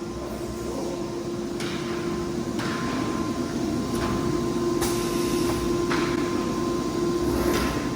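Window-profile welding and corner-cleaning machine line running: a steady motor hum with about five short hissing bursts of compressed air from the pneumatic actuators.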